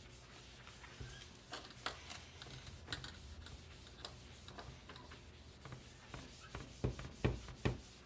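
Microfiber pad rubbing over a MacBook Pro's aluminium unibody case while it is wiped down with a water and alcohol mix, with scattered small clicks and a few louder knocks near the end.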